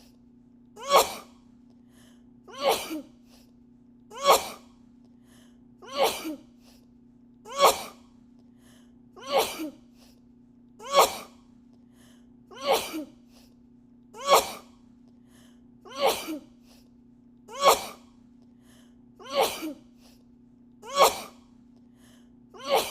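A woman sneezing over and over at a machine-like even pace, about one sneeze every 1.7 seconds: a looped edit of a sneezing fit.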